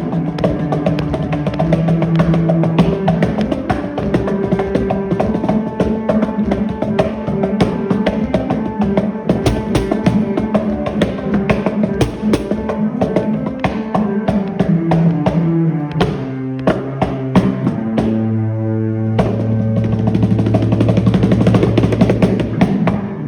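Music with drums and a plucked, guitar-like instrument, full and busy, thinning to a few hits and held low notes for a few seconds past the middle before the full sound returns.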